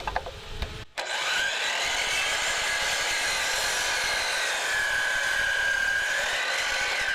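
DeWalt compound miter saw starting up about a second in and cutting through a 4x6 wooden beam. Its steady high motor whine sags in pitch in the middle of the cut as the blade works through the wood.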